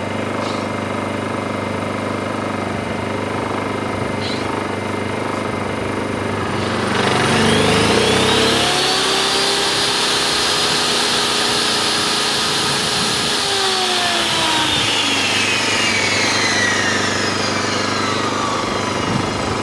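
Honda EU2000i inverter generator's small single-cylinder engine running steadily at its eco-throttle idle. About seven seconds in, a table saw on the generator's power is switched on: the saw's motor whine rises and the generator engine speeds up to carry the load. A few seconds later the saw is switched off, and its whine falls away slowly as the blade coasts down.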